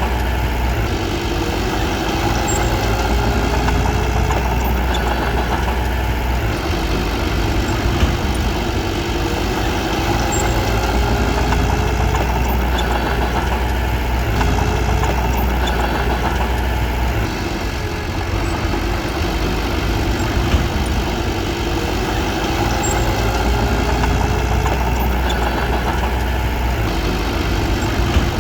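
Komatsu D21P small bulldozer's diesel engine running steadily, its deep low note easing off and picking up again a few times. Two short knocks are heard, about a third and two-thirds of the way through.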